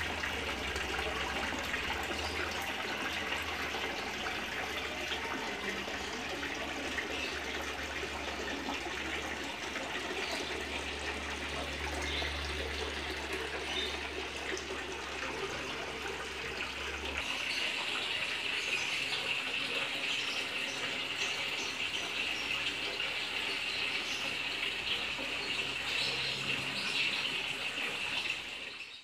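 Water splashing and trickling steadily from a small tiered fountain pouring into a garden fish pond. A low hum runs under it and stops a bit over halfway through.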